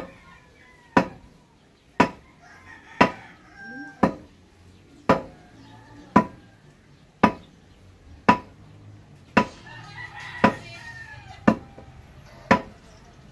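Steel well-drilling pipe being pounded by hand, about one ringing metallic strike a second, during manual deep-well drilling into rock. A rooster crows in the background, a few seconds in and again near the end.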